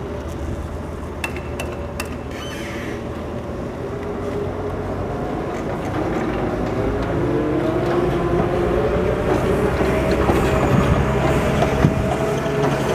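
A vehicle engine running steadily, its pitch and loudness slowly rising through the second half. A few sharp clicks sound in the first two seconds.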